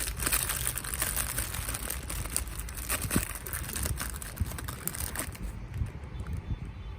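Packaging crinkling and rustling as it is handled while a parcel is unboxed, stopping about five seconds in, after which only low handling bumps remain.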